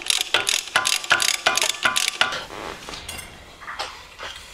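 Quick metallic clicking and clinking of a socket wrench working a 10 mm nut on the gearbox's gear linkage, dense for about two seconds, then thinning out and fading.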